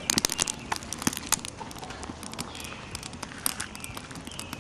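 Wood campfire crackling in a metal fire ring: many sharp, irregular pops and snaps over a low hiss.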